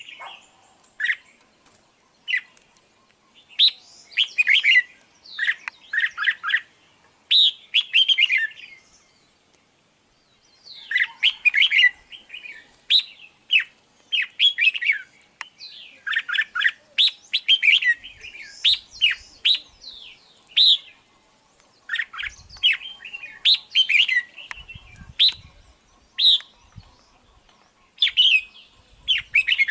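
Red-whiskered bulbul song: a long run of short, bright chirping phrases, repeated with brief pauses and one longer gap about a third of the way in.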